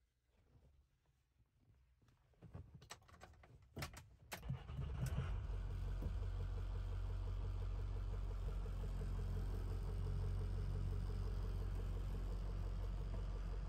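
Ford 6.0L Power Stroke V8 turbo diesel of a 2007 F-350 being started: a few clicks from about two and a half seconds in, a short crank, and the engine catches at around four and a half seconds, then idles steadily, heard from inside the cab.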